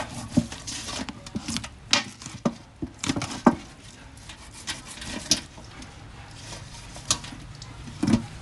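Irregular clicks and knocks of dishes and kitchen utensils being handled, with louder knocks about two, three and a half and eight seconds in.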